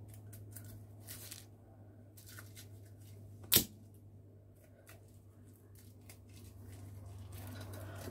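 Crinkly plastic packaging being handled and rustled, with scattered small clicks and one sharp loud snap about three and a half seconds in, over a steady low hum.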